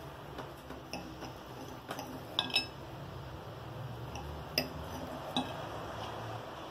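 Metal knife and fork clinking and scraping against a ceramic plate while cutting into a potato omelette. There are several light clinks, the sharpest two close together about two and a half seconds in and two more later on.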